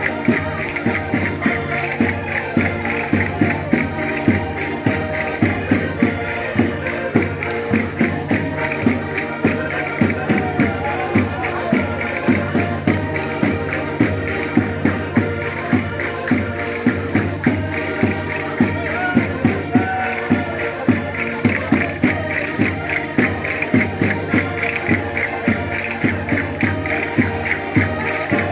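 Concertinas playing a lively traditional dance tune in sustained reedy chords, over a steady, regular percussive beat.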